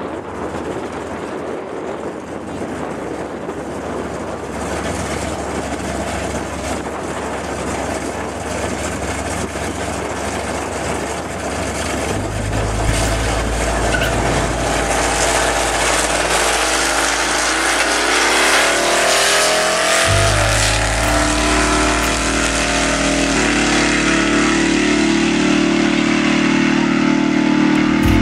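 Drag-racing cars, a 1995 Cadillac Seville and an old pickup truck, running at the starting line with wind on the microphone, then launching and accelerating away down the strip, the engine pitch rising through the gears about two thirds of the way through.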